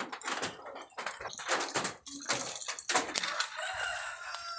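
Backyard chickens clucking, with a faint rooster crow near the end. Short scuffing clicks from footsteps on dirt run under it.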